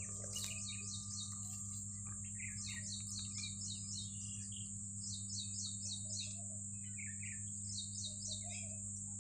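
Birds calling in repeated runs of quick chirps, over a steady high-pitched insect buzz and a steady low hum.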